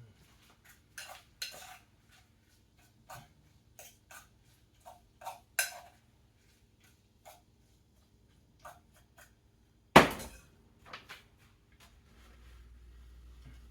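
Kitchenware clinking and knocking: a string of irregular light taps of utensils against pots and dishes, with one sharp loud clank about ten seconds in. A faint steady low hum comes in near the end.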